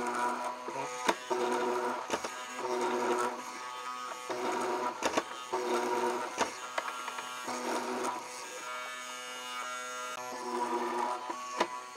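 MK361A hollow-chisel mortising machine running: its electric motor whines in stretches as the square chisel and auger bit are plunged into a wooden beam, with about five sharp knocks as the chisel strikes and seats.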